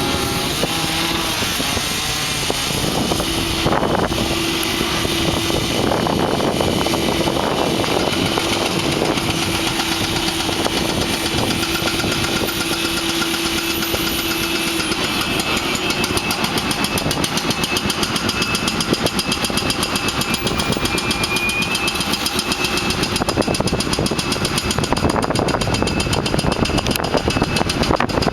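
Demolition machinery running loudly, with a steady engine tone for the first half and a rapid, even hammering from about halfway through, as a breaker hammer pounds the site apart.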